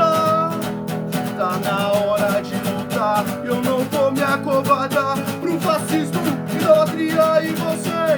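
Music: a song with guitar, a bending melodic line over a steady low accompaniment.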